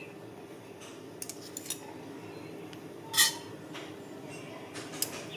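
Metal kitchen utensils and cookware knocking and clinking: a few light clinks, then one loud clink about three seconds in and another near the end.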